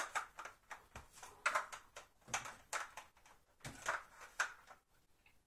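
Black plastic lid and measuring cup of a Monsieur Cuisine Connect food processor being handled and fitted onto its steel mixing bowl: a dozen or so irregular plastic clicks and scrapes.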